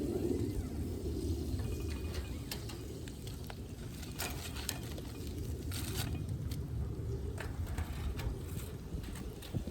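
Food frying in a pan, with scattered pops and crackles over a steady low rumble.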